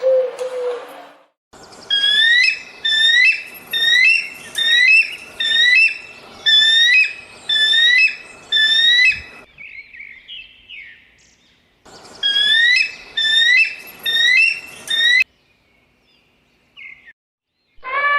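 A bird calling: a quick series of short, rising whistled notes, about two a second, in two bouts with a pause of a couple of seconds between them.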